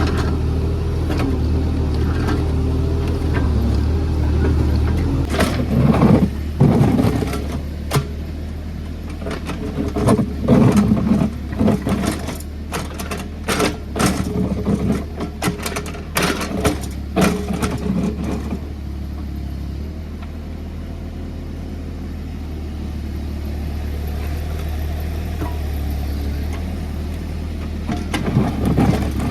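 JCB JS30 Plus mini excavator's diesel engine running steadily, with a run of knocks and clattering from about five to eighteen seconds in as the bucket works the ground and roots.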